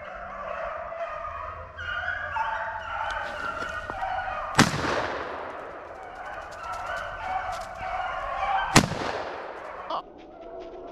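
A pack of rabbit hounds baying and yelping on a running rabbit, with two loud gunshots about four seconds apart. Each shot echoes away.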